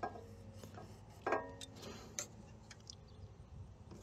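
Small metallic clicks and taps as a feeler gauge and hex key are worked against a rocker arm, setting the valve clearance on a generator engine. The sharpest click comes about a second and a quarter in, with a few lighter ticks after it.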